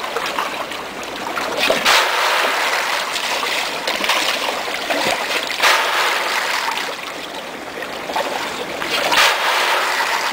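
Rainbow trout thrashing at the surface of a stock pond in a feeding frenzy: a steady rush of splashing water, with louder surges of splashing three times.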